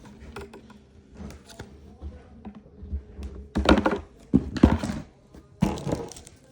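Packaging being handled: small knocks and clicks, then three loud bursts of rustling in the second half.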